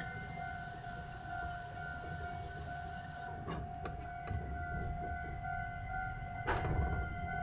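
Iyo Railway streetcar running along street track, heard from the cab: a steady whine over a low rumble, with a few sharp clacks around the middle and a louder one near the end.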